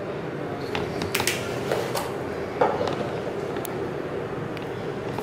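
A glass spice jar being handled over a tabletop: a few scattered light clicks and taps, over a faint steady background hiss.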